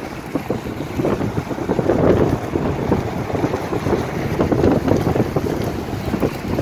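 Coal train hopper cars rolling past, a continuous rumble of steel wheels on the rails, with wind buffeting the microphone.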